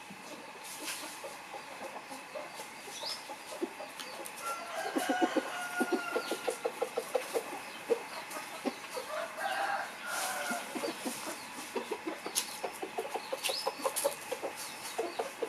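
Domestic rooster clucking in rapid runs of short, low clucks, loudest about five to eight seconds in and again near the end. A few brief high bird chirps sound in the background.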